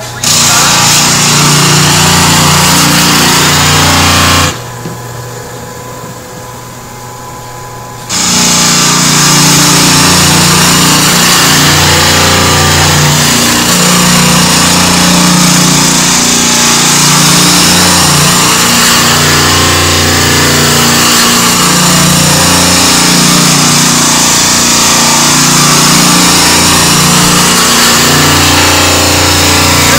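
Clark Easy 8 electric drum sander, its 8-inch sanding drum running loud and steady on worn plywood. About four seconds in, the sanding noise drops away for three to four seconds, leaving a quieter hum, then comes back.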